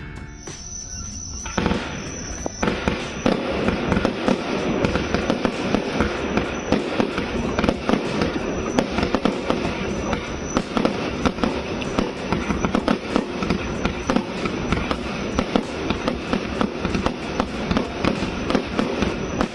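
Blackboxx Alphatier fan cake (a W-fan firework battery) firing: a dense, rapid run of launch thumps, bursts and crackle. It starts a second and a half in and keeps going without a break.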